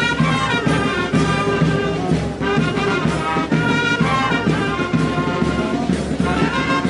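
Police brass band playing a march: trumpets and trombones carrying the tune over a steady low beat.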